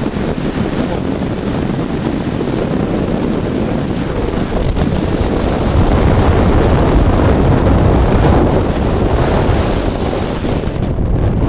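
Wind buffeting the microphone: a steady rush of noise that grows louder about six seconds in.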